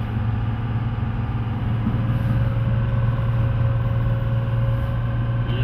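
Tugboat engine running steadily, a low drone with a steady hum on top that grows slightly louder about two seconds in.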